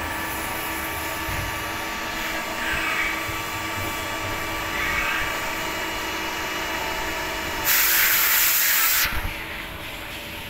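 CNC turning lathe running with a steady hum of several tones while its tool turret is jogged toward the bar, with short whirs about three and five seconds in. About eight seconds in, a loud hiss lasts for about a second and a half and then cuts off.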